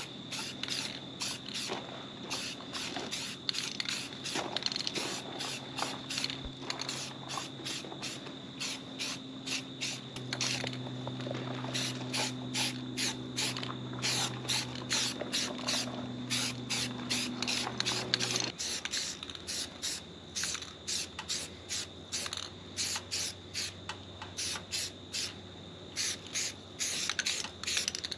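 Aerosol spray can of Rust-Oleum trim and bumper paint hissing out in many short bursts in quick succession as window trim is painted.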